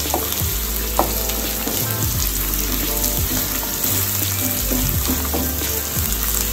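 Oil sizzling steadily as sliced chayote, onion and green pepper fry in a nonstick frying pan, stirred with a wooden spatula that scrapes and taps against the pan now and then.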